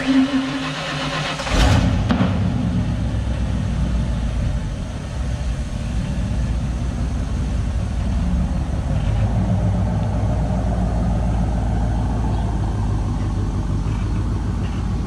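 Ford pickup truck's engine starting up. It catches with a loud surge about a second and a half in, then runs steadily as the truck pulls slowly away towing a loaded car trailer.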